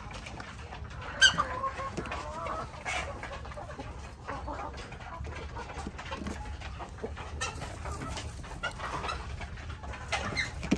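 Hens clucking in the coop in short, wavering calls, with a sharp knock about a second in.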